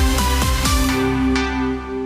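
Electronic dance music with a heavy bass and falling bass drops on the beat; the bass and drums drop out about a second in, leaving held synth chords.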